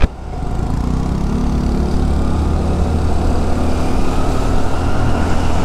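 Small two-wheeler engine running steadily at riding speed, over a strong low rumble of wind and road noise.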